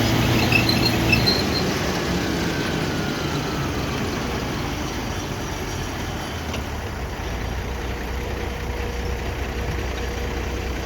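Engine running steadily with mechanical noise. About a second in, a low tone drops out and the sound eases off a little, then a lower steady hum takes over near the end.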